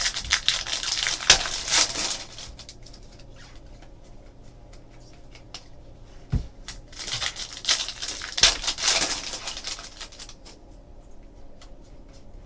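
Crinkling and rustling of trading card pack wrappers being torn open and cards handled, in two spells: one at the start and another about seven to nine seconds in, with scattered clicks and a soft thump between them.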